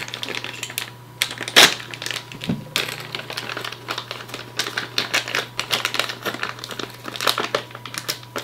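Crinkling of plastic packaging mixed with quick small clicks and taps of parts being handled, with one sharper knock about a second and a half in.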